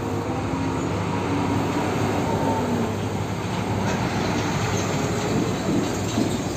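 A large tanker truck driving past close by: steady engine and road noise.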